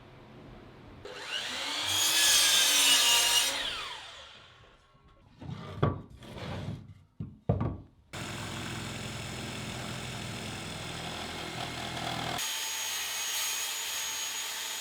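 A power saw cuts through framing lumber, the noise swelling and then fading over about three seconds. A few sharp knocks on wood follow, then a steady machine noise that starts and changes abruptly.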